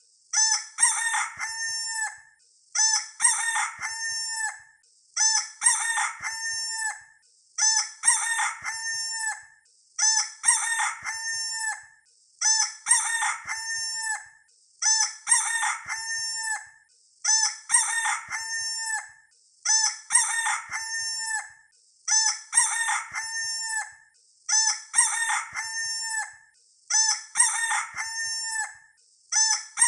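Rooster crowing, the same crow repeated over and over about every two and a half seconds, as a looped sound effect.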